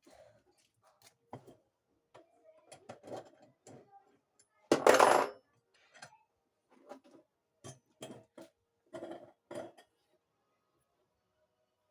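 Irregular clinks and knocks of small hard objects, with one louder, noisier rush lasting about half a second around five seconds in. A faint steady hum runs underneath.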